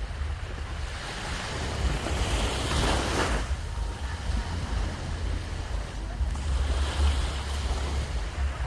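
Surf washing onto a beach, one wave surging up and breaking off about three seconds in and another swelling near the end, with wind rumbling on the microphone.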